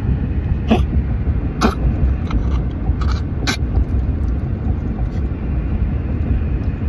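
A run of short, sudden coughs, most of them in the first three and a half seconds, over a steady low rumble.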